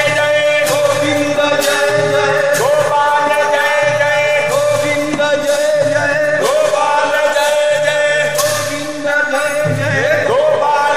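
Devotional kirtan: a male voice singing a chant over a steady held note, with struck percussion ringing about once a second.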